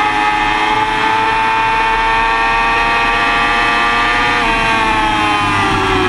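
2005 Yamaha R6's inline-four engine running at high revs, holding a fairly steady pitch for about four seconds, then falling in pitch over the last second and a half as the revs drop. Wind rush over the bike-mounted microphone runs under it.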